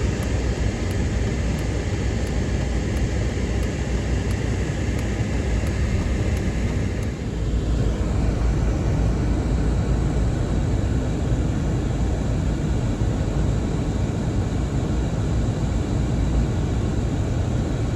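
Steady road and engine noise inside a moving car's cabin, heavy in the low end, with faint evenly spaced ticks through the first six seconds or so.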